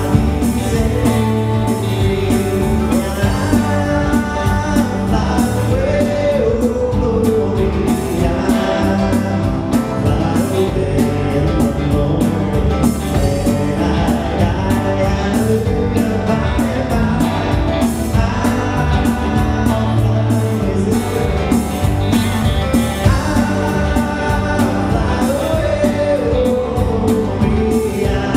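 Live worship band playing a song with sung vocals over strummed guitars, bass guitar and a drum kit keeping a steady beat.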